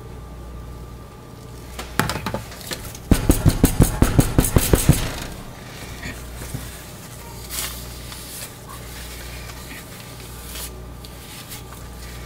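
Wooden loaf soap mold rapped repeatedly on the glass stovetop: a couple of knocks, then about two seconds of quick knocks, roughly six a second, to settle the freshly poured, thick soap batter in the mold. A low steady hum sits underneath.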